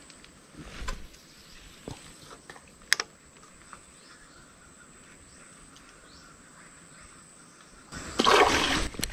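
Quiet outdoor ambience with a steady high-pitched insect drone, a few light clicks in the first seconds, and a loud noisy burst about eight seconds in.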